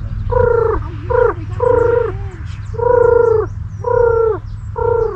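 A large bird calling over and over, about one harsh call a second, each call dropping in pitch at its end. Small birds chirp faintly above it, over a steady low rumble.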